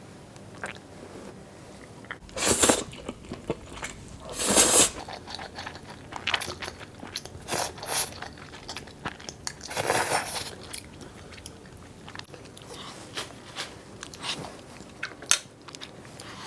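Close-miked eating sounds: three loud mouthfuls about 2.5, 4.5 and 10 seconds in, with chewing and small crunches and mouth clicks between.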